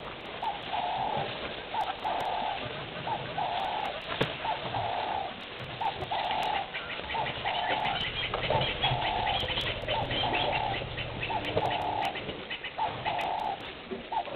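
A dove cooing over and over in a steady repeating phrase, a short note followed by a longer one, about once a second. In the middle a rapid, higher-pitched chatter joins in.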